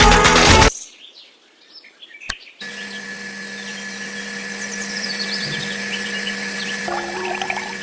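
Background music cuts off suddenly, followed by a short quiet gap with a single click. Then a steady hum with faint bird chirps over it.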